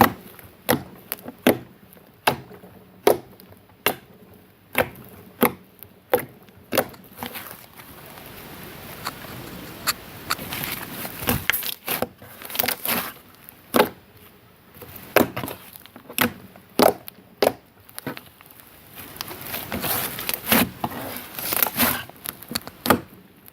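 Green cloud slime being worked by hand: a run of sharp sticky pops and clicks about one or two a second, with stretches of soft crackling in between.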